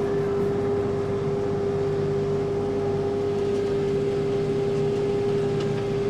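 Kubota tractor running a front-mounted snowblower while clearing snow, heard from inside the cab: a steady engine and machine drone with a constant whine held at one pitch throughout.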